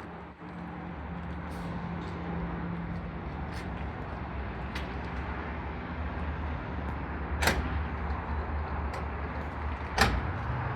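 An engine running with a steady low hum, with scattered faint clicks and two sharp knocks about two and a half seconds apart in the second half.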